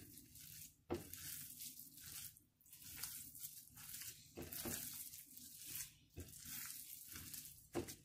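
Hands squishing and mixing cooked semolina with grated potato on a plate: faint, repeated wet rustling strokes, with a sharp click about a second in and another near the end.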